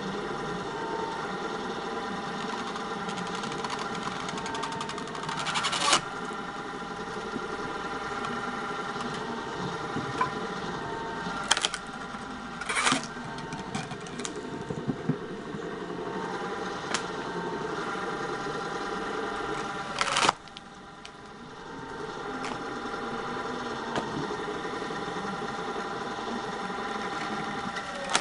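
Homemade screw-cone log splitter running, its 3 kW electric motor and V-belt drive giving a steady hum, while logs pushed onto the spinning threaded cone split with loud cracks, about four in all. After the loudest crack, about two-thirds of the way in, the hum dips briefly and builds back up.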